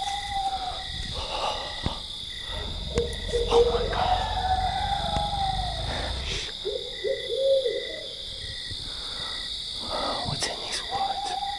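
An owl hooting again and again, in long arched hoots and short runs of lower hoots, over a steady high-pitched insect chorus. A low rumble underneath stops about six and a half seconds in.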